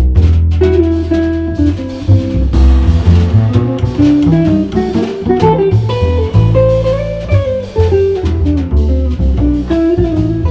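Live jazz trio with bass and drum kit playing an original jazz waltz in 3/4 time.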